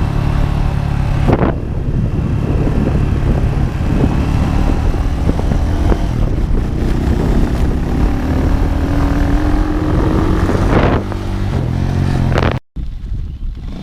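A motor vehicle's engine running steadily, its pitch rising slowly for a few seconds midway as it speeds up. The sound cuts out abruptly for a moment near the end.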